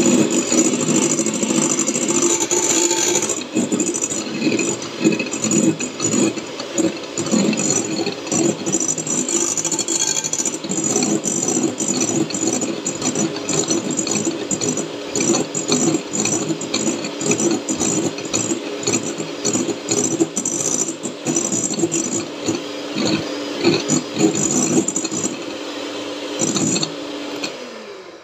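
Electric hand mixer running, its beaters whirring and rattling against a glass bowl as they mix yolks and flour into beaten egg whites for a coating batter. It winds down and stops near the end.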